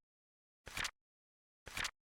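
Flip-clock sound effect: a short flap-flip click once a second, two of them here, marking each second of the countdown.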